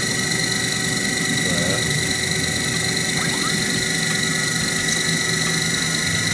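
Sherline milling machine spindle motor running free at speed with a steady high whine, the end mill spinning above the workpiece before the cut begins.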